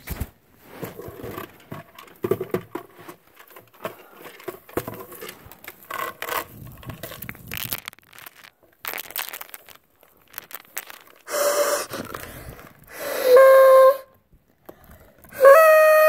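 Paper New Year's party horn blown three times, each a loud buzzing honk of about a second, the last the longest. Before the honks, scraping and rustling of the horn and its tinsel being handled.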